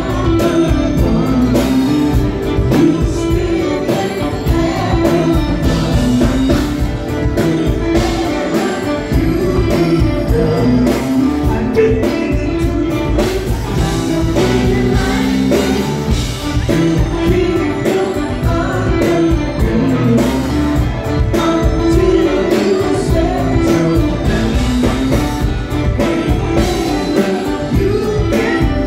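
Live R&B band playing, with women singing lead vocals over a steady drum beat and keyboards.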